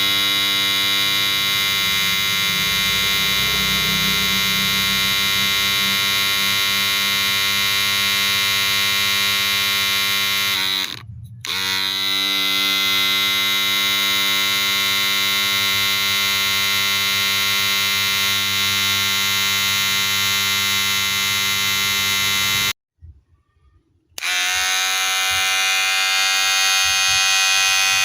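Wahl cordless electric hair clipper running with a steady buzzing hum. It dips briefly about eleven seconds in and cuts out for about a second near the three-quarter mark before buzzing again.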